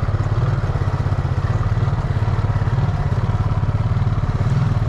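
ATV engine running steadily under load with a fast, even pulsing as the quad pushes through deep water.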